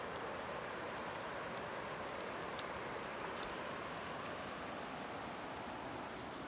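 River water flowing steadily over a cobble bed, an even rushing noise with a few faint ticks.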